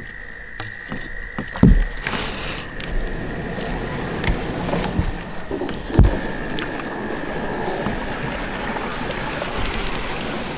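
Sounds of a man moving in a canoe on the water: a steady wash of water noise, with two dull knocks against the hull, one about two seconds in and one about six seconds in.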